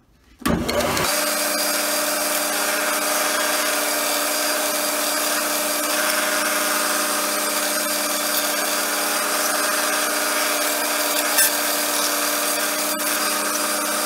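Belt sander switched on and running steadily, sanding the end of a basswood pen blank held square to the belt in a sanding jig to flatten it. The motor comes up to speed about half a second in, then holds an even hum and hiss.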